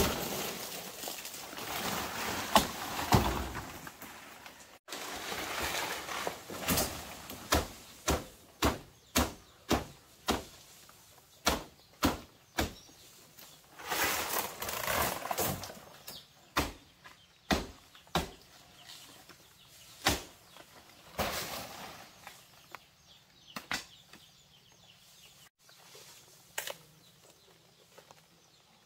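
A series of sharp knocks or chops, at times about two a second, with stretches of rustling noise between them.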